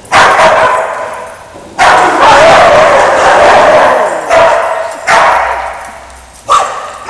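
Dogs barking loudly in a hard-walled, tiled room, the barks echoing. The barks come in bursts: one at the start, a long overlapping run about two seconds in, then shorter bursts toward the end.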